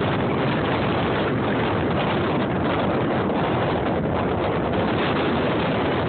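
Steady rushing of a huge waterfall, Niagara Falls, mixed with strong wind buffeting the phone's microphone.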